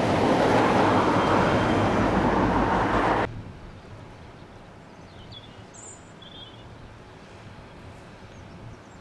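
Class 57 diesel locomotive running past at close range at the tail of a snow train, a loud, even engine and rail rumble that cuts off abruptly about three seconds in. Then quiet open-air background with a few short bird chirps.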